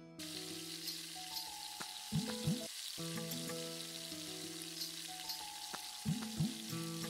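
Battered aubergine slices (beguni) frying in hot oil in a wok, a steady sizzle. Background music with held notes and a few sliding notes plays over it.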